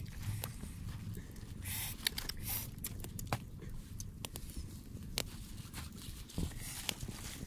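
Scattered sharp clicks and brief rustles of grilled frogs on a wooden skewer being handled on banana leaves and a woven basket, over a steady low rumble.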